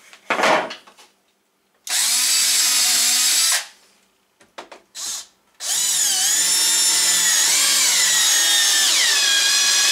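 A knock, then a cordless drill working at the fan's mounting flange in the wooden ceiling: one burst of about two seconds, a short blip, and a long run of about four seconds. In the long run the motor's whine wavers and sags in pitch near the end as it comes under load.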